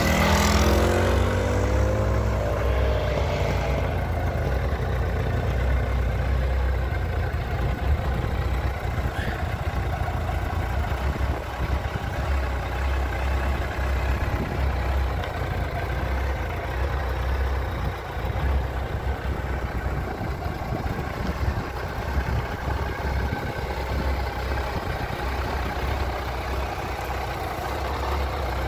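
2007 Suzuki Hayabusa's 1300 cc inline-four engine, just started, with its revs shifting in the first few seconds before it settles into a steady idle.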